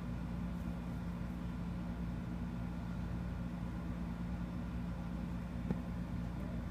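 Steady low background hum, with one faint click a little under six seconds in.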